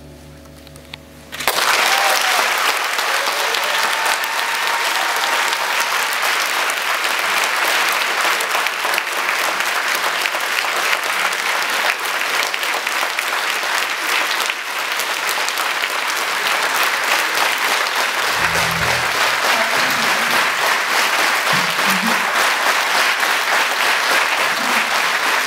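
The last strummed acoustic-guitar chord fades out, then an audience breaks into steady applause about a second and a half in and keeps clapping.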